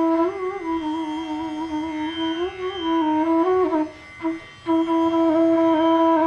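Bansuri (bamboo transverse flute) playing raag Patdeep: a slow melodic line of sustained notes with small slides and ornaments. It breaks off for a breath about four seconds in, then returns with a long, steady held note.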